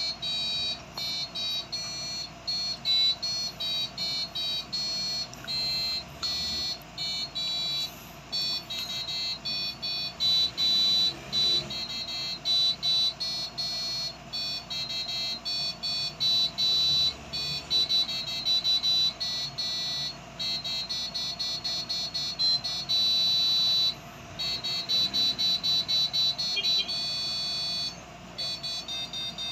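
Piezo buzzer driven by an Arduino playing a simple melody as a run of short, high-pitched beeping notes that change in pitch, with brief gaps between them, over a faint steady hum.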